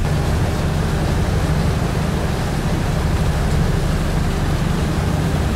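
Steady drone of a river motor ship's engines under a rushing noise of wind and water.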